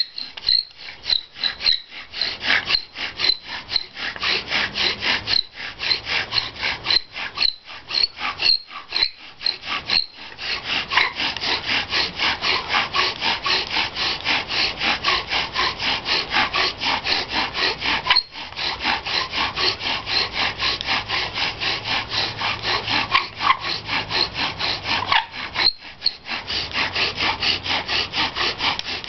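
Bow drill in use: a cedar spindle spun back and forth by the bow in a pine hearth board, a rhythmic grinding squeak with each stroke. For about the first ten seconds the strokes come with short gaps between them, then the rubbing turns faster and steadier, broken twice by brief pauses.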